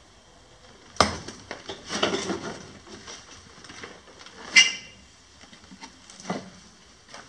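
Footsteps over rubble and loose boards, with a few sharp knocks and clatters of debris underfoot; the loudest, about four and a half seconds in, is a clink with a brief ring.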